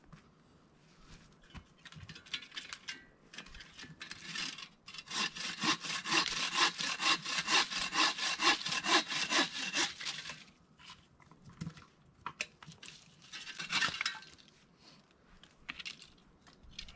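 Hand saw cutting wood in quick back-and-forth strokes, about five a second, steady and loudest for about five seconds in the middle, with lighter, scattered strokes before and after.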